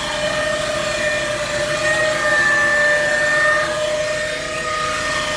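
Tractor-driven Fendt Tigo loader wagon machinery running steadily, a continuous drone with a high whine.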